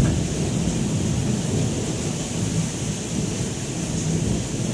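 Thunder cracks and rumbles loudly right at the start, then rolls on low and unsteady under the steady hiss of heavy rain.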